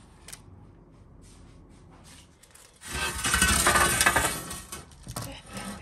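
Metal baking tray scraping across the brick floor of a wood-fired oven. A loud, rough scrape lasts about a second and a half, starting about three seconds in, with light clinks and knocks of the tray around it.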